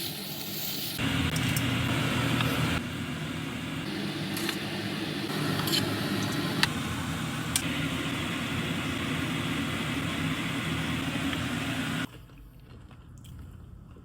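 Yakisoba noodles frying and sizzling in a hot pan, with a few sharp utensil clicks. The sizzle stops abruptly about 12 seconds in, leaving much quieter room sound.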